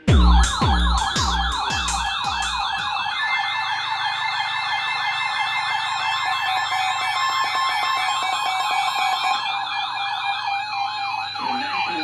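Electronic sirens yelping, several overlapping, their pitch swinging up and down about four times a second. A series of deep booms falling in pitch sounds through the first two to three seconds.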